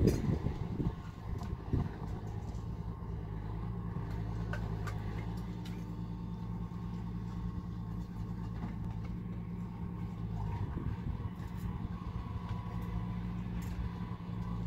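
A steady low engine hum, like a motor vehicle running, that shifts slightly in pitch about ten seconds in, with a few light clicks over it.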